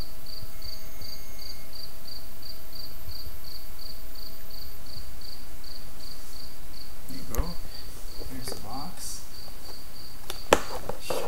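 Steady high insect chirping, about three chirps a second. Over the last few seconds there are knocks and rustles of the cardboard hobby box being handled, the loudest a single sharp knock near the end.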